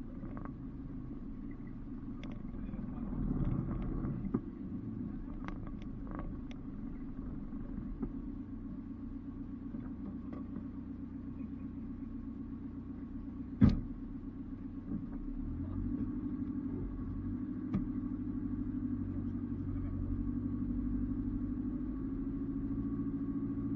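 Off-road 4x4 engine running steadily at low revs. Several small knocks in the first few seconds, and one sharp knock about fourteen seconds in. The revs pick up slightly a couple of seconds after the knock.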